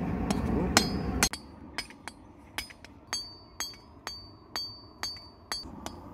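Blacksmith's hammer striking red-hot steel on an anvil, about two blows a second, each with a short bright metallic ring, as the steel is hammered into a curved claw.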